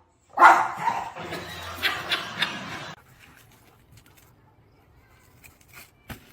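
A dog vocalizing for about two and a half seconds, starting shortly after the start.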